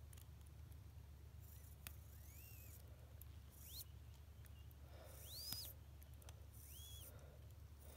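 Faint 'whoop' squeaks from a Sellita SW210-1 watch movement held close to the microphone: about four short squeaks, each rising then falling in pitch, with a couple of soft clicks between them, over a low steady hum.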